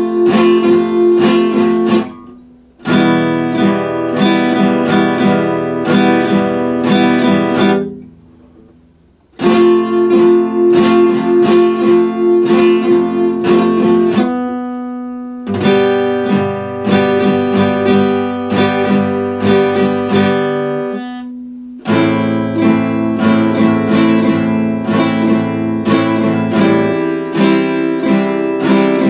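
Epiphone steel-string acoustic guitar strummed in quick chord strokes, in several phrases broken by short pauses, with one chord left to ring on its own about halfway through.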